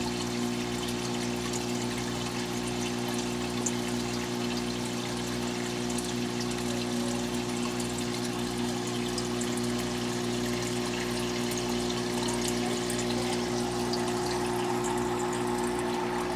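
Saltwater aquarium running: the steady hum of its water pumps over a constant trickle and splash of circulating water.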